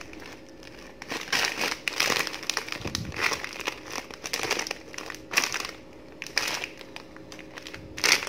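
Plastic snack packet of puffed crackers crinkling as hands turn it over and squeeze it, in irregular bursts, the loudest near the end.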